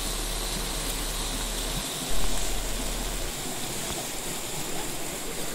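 Shallow mountain stream rushing steadily over pebbles and rocks, briefly louder about two seconds in.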